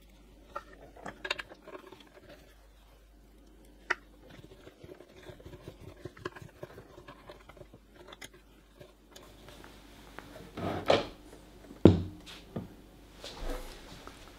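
Small screws being fitted into a 3D printer's sheet-metal frame by hand: light clicks, taps and rattles of metal on metal, with a few louder knocks in the last few seconds.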